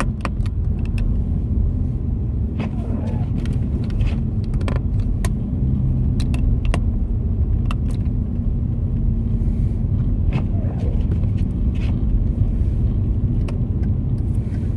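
Hyundai Genesis Coupe running, a steady low drone of engine and road noise, with scattered sharp clicks throughout.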